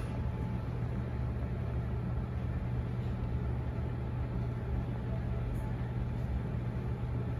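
Steady low hum over a constant background noise: indoor shop ambience, with no distinct event standing out.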